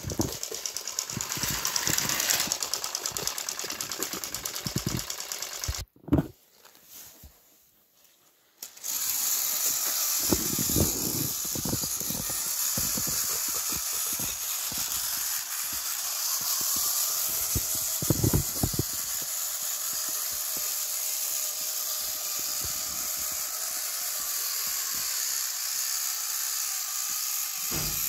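Battery-powered Thomas & Friends toy train motors running on plastic track: a steady high whirring hiss with a fast fine rattle. It cuts out for about three seconds after about six seconds in, and there are a few low knocks later on.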